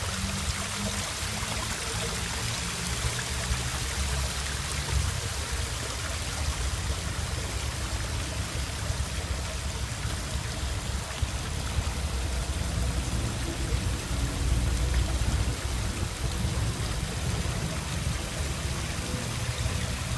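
Water falling and splashing over a decorative stone waterfall in a steady rush, with a low, uneven rumble underneath.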